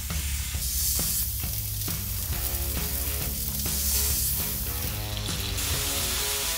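Tomahawk chops topped with orange slices sizzling steadily on a hot cast-iron griddle over wood embers, with background guitar music.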